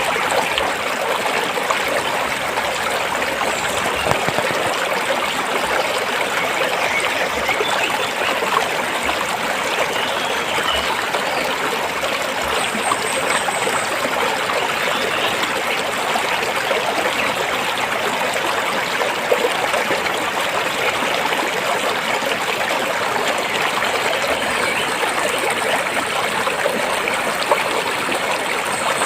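A stream flowing over rocks: a steady, even rush of running water with small splashes and trickles.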